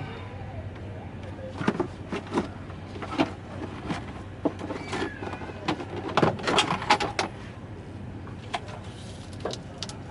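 Scattered knocks and clicks of tools and parts being handled during vehicle repair work, most of them in the middle stretch, over a steady low hum.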